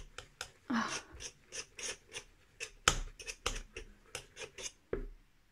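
Wire whisk scraping and clicking against the sides and bottom of a metal pot while mixing a runny flour, water and vinegar paste, in quick strokes about five a second that stop near the end.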